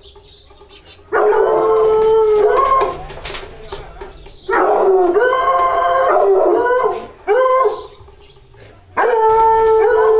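American Foxhound baying: three long, drawn-out howls with a short call after the second.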